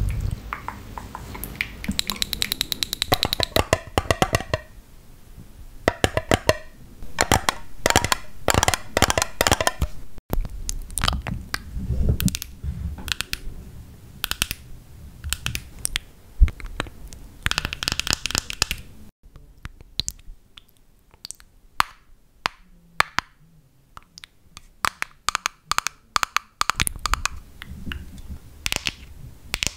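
ASMR nail tapping and clicking: long acrylic fingernails tapping and clicking close to the microphone in quick runs with short pauses. A few taps carry a brief ringing note.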